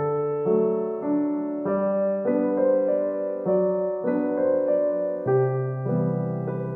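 Background piano music: a slow melody of held notes over a bass line, changing about every half second to a second.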